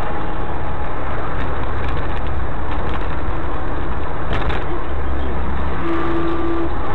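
Steady road and engine noise of a moving vehicle, with a short horn toot about six seconds in.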